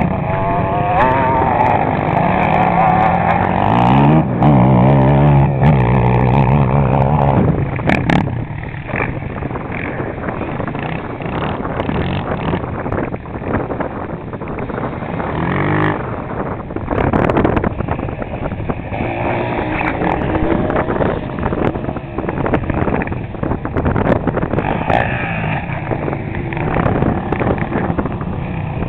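Sport ATV engine revving up and down as the quad is ridden over sand, its pitch climbing steeply about four seconds in and rising again several times later. It is loudest in the first several seconds and somewhat fainter through the rest as the quad rides farther off.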